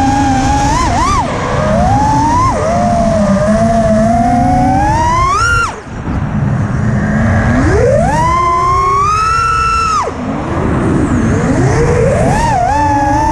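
Racing quadcopter's four T-Motor brushless motors and 5-inch props whining, their pitch rising and falling with the throttle. The whine climbs and then cuts off abruptly about six seconds in and again about ten seconds in, as the throttle is chopped for flips, then rises again near the end. Wind rushes over the onboard camera's microphone.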